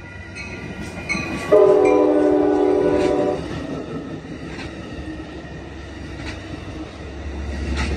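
Amtrak Capitol Corridor passenger train passing at speed. Its horn sounds one steady blast of about two seconds, a chord, over the rumble and clicking of the bilevel cars' wheels on the rails. The low rumble grows near the end as the F59PHI diesel locomotive pushing at the rear comes by.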